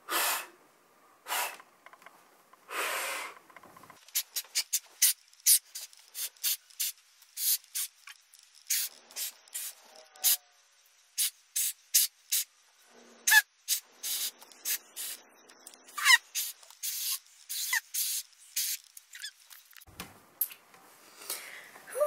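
Repeated finger-whistle attempts: short, breathy puffs of air blown hard past the fingers and curled tongue. They come roughly twice a second and are mostly a hiss with no note. A thin whistle tone breaks through briefly a couple of times, around the middle and about two-thirds through.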